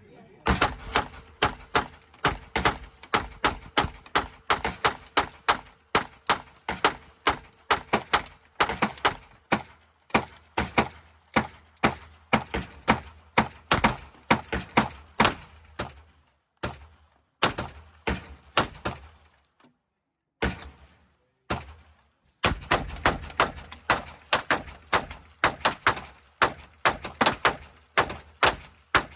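Gunfire at an indoor range: a long string of shots, about two to three a second and of uneven loudness, with two short pauses before firing picks up again.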